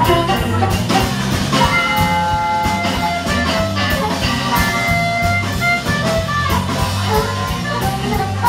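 Live blues band playing an instrumental break: an amplified harmonica solo with long held notes over electric guitar, bass and a steady drum beat.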